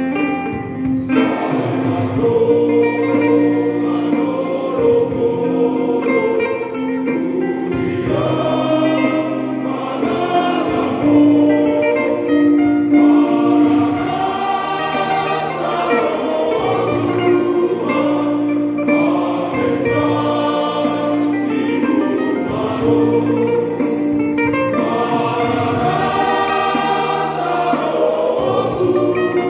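Men's choir singing a church hymn, accompanied by acoustic guitar and electronic keyboard.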